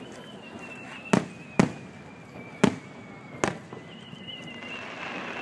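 Aerial firework shells bursting: four sharp bangs about a second in, just after, and near the middle, each with a short echoing tail.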